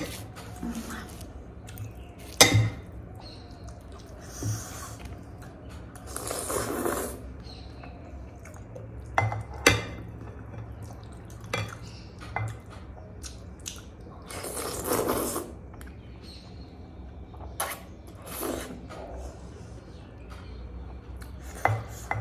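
Metal fork clinking against a glass bowl of noodle soup, a handful of sharp separate clinks, with two slurps of noodles about a second long each, roughly a third and two-thirds of the way in.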